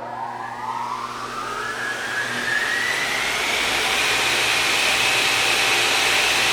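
A machine's motor spinning up. Its high whine rises in pitch over the first few seconds, then levels off and holds steady. A rushing noise grows louder beneath it, over a low steady hum.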